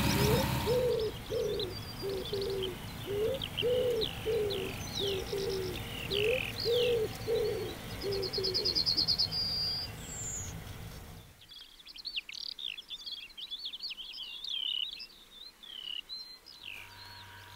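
Birdsong: songbirds chirping and trilling, with a pigeon cooing over and over in the first half, over a steady background rush that drops away about eleven seconds in.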